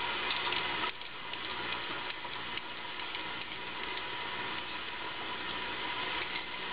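Vegetable peeler scraping the skin off a carrot in repeated short strokes, faint over a steady hiss.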